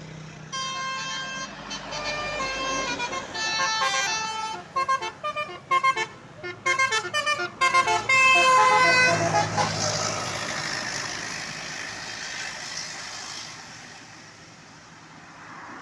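A bus's roof-mounted 'telolet' multi-tone air horn plays a stepping melody, ending in a run of short staccato toots. Then comes a loud rushing noise that fades away over several seconds.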